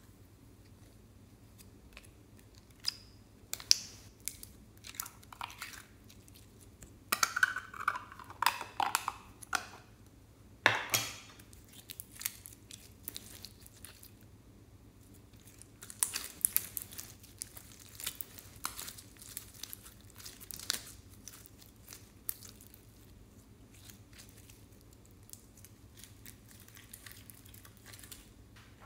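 Yellow store-bought slime with glitter flakes pulled from its plastic container and stretched by hand: sticky crackling and popping clicks that come in clusters, busiest about a third of the way in and again past the middle.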